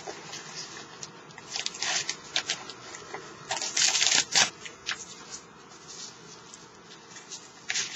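DVD cases and their packaging being handled and sorted, an irregular rustling with scattered clacks, busiest around the middle.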